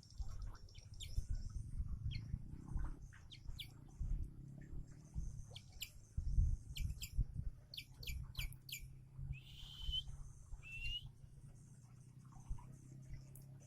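Bird chirping: many short, sharp chirps, coming quickly, with two longer calls a little past the middle, over a steady low rumble.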